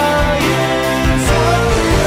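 Progressive rock band playing an instrumental passage: sustained chords over a steady beat.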